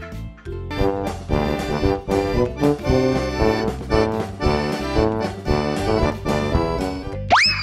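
Upbeat background music with a steady beat and a quick run of changing chords. Near the end, a short rising whistle-like glide.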